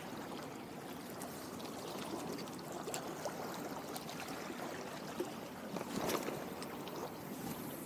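Sea water lapping and sloshing at the shore, with scattered small clicks and a louder surge of sloshing about six seconds in.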